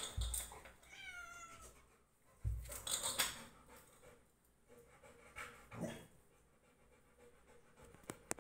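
A cat meows once, a short high call that falls slightly in pitch about a second in. Low thumps and rustling come before and after it.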